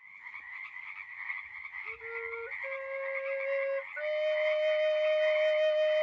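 A steady chorus of calling animals, with a wind instrument joining about two seconds in and playing three long notes, each a step higher than the last; the third note is held.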